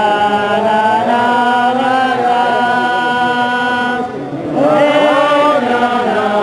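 Large group of Hasidic men singing a melody together in unison, the many voices thinning briefly about four seconds in before the singing swells again.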